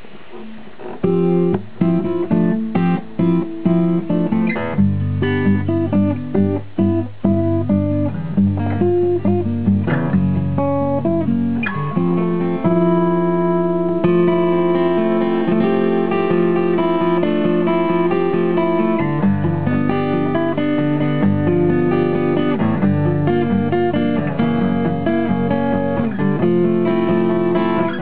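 1978 Tokai CE500 Cat's Eyes steel-string acoustic guitar strummed and picked with a flatpick. It starts with a few separate chords with short gaps between them, then plays on without a break.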